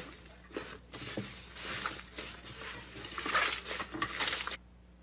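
Slime being squished and worked by hand: irregular wet clicks and crackles that stop suddenly about four and a half seconds in.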